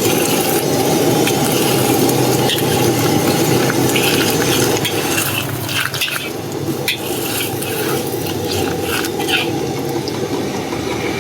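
Rice and egg being stir-fried fast in a wok: a steady rushing sizzle, with a metal spatula scraping and clinking against the pan, most often in the second half.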